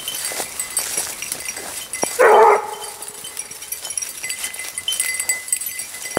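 A Grand Basset Bleu de Gascogne hound gives a single short bay about two seconds in, a hound giving tongue on the hare's scent.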